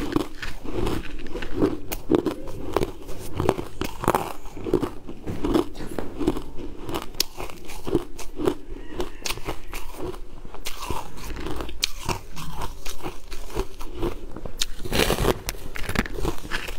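Chewing and crunching a mouthful of frozen purple sweet ice in a steady rhythm of about one and a half crunches a second, with a louder crunching bite into the ice slab near the end.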